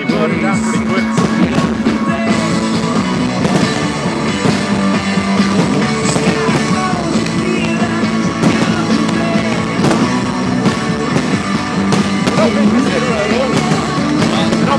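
Loud heavy rock music with singing, played continuously over outdoor loudspeakers.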